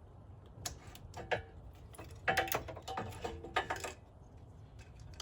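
Irregular clusters of sharp clicks, clacks and rattles from hand tools and small plastic fastener clips being handled, some with a short ringing tone, loudest between about two and four seconds in.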